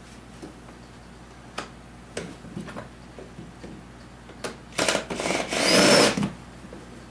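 A few light clicks and knocks of tools on plastic dash trim, then a cordless drill-driver runs for about a second and a half with a rising whine, backing out a dash screw.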